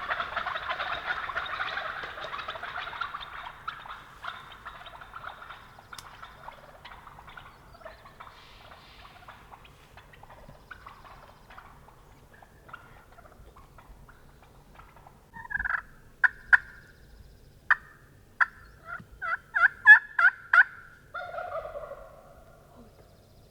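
Wild turkeys calling: a dense, rattling chorus at first that fades over several seconds. About two-thirds of the way in comes a run of about a dozen sharp, loud calls, loudest near the end. It closes with a lower drawn-out note.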